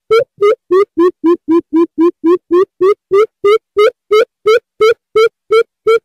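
Greater coucal calling: a long, loud series of hollow hoots, about three and a half a second. The hoots sink a little in pitch over the first two seconds and then rise back.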